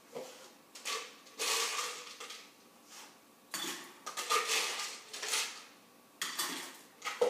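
A run of irregular clinks and clatters, hard objects knocking together, some with a faint ringing.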